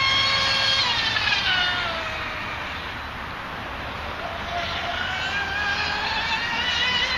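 High-pitched whine of an RC speedboat's Leopard 4074 2150kv brushless motor (Drifter MK2 on 6S) running across the water. The whine drops in pitch and fades about a second in. It climbs back up and grows louder toward the end.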